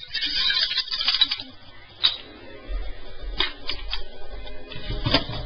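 A loose fin rattling around inside the hollow body of a 1967 Century 21 Toys Zero-X model as the toy is shaken. A dense clatter lasts about a second and a half, then a few single clicks and knocks follow as it is handled.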